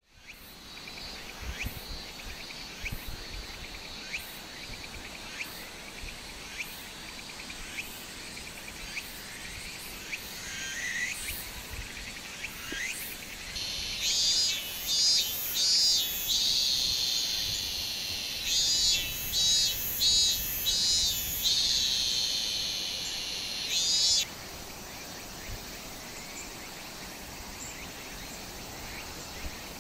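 Summer cicadas calling: a run of loud, pulsing high buzzes from about 14 to 24 seconds in, over a steady high insect hum with faint regular ticks.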